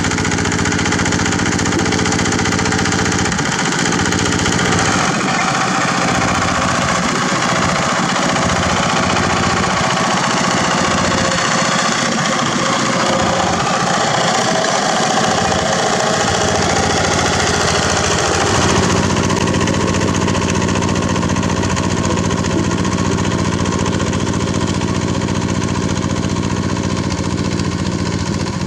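Yanmar TF105 walking tractor's single-cylinder diesel engine running steadily as it drives the rotary tiller. The engine note changes twice, about 4 s in and again about 19 s in.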